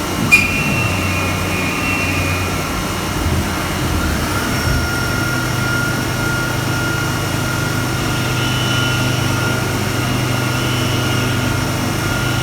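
CNC milling machine running, a thin end mill cutting out a bore in a carriage part, over a steady low machine hum. A sharp click comes just after the start, and a steady high whine from the cut joins about four and a half seconds in.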